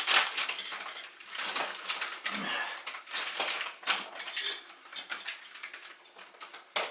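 Irregular metal clinks and scrapes of hand tools and a threaded press being turned to force a wrist pin into a connecting rod.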